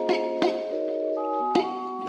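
Music: sustained keyboard-like chords that change twice, with a few sharp percussive hits on top.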